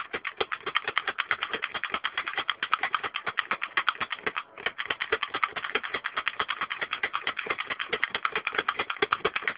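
Manual pick gun being triggered over and over in a pin-tumbler lock cylinder: rapid, even clicking as its needle snaps up against the pins, with a brief pause about four and a half seconds in.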